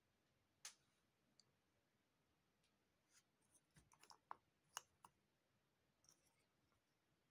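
Faint clicks and taps of cardboard jigsaw puzzle pieces being picked up, shuffled and set down by hand: one click early, then a quick flurry of several in the middle, and a few light ticks near the end.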